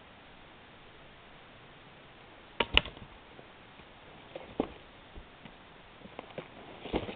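Two sharp knocks close together about two and a half seconds in, then a few lighter knocks and rustles near the end as split birch firewood and the maul are handled.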